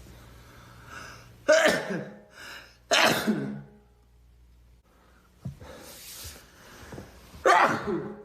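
A person sneezing: two loud sneezes a second and a half apart, beginning about a second and a half in, then a third near the end, each preceded by a short breathy intake.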